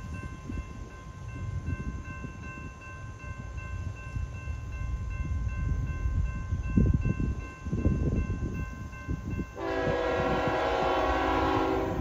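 A diesel freight locomotive's air horn sounds one loud held blast of a steady multi-note chord, starting suddenly about ten seconds in. Before it there is a low rumbling that swells and fades, with a faint steady high tone.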